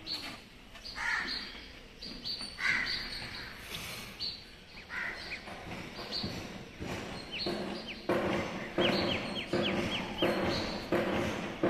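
Birds chirping, with a quick run of short, high, falling chirps about two-thirds of the way in, over uneven background noise.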